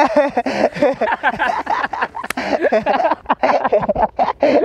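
Several men's voices shouting and talking over each other in a scuffle. A sharp click about two seconds in.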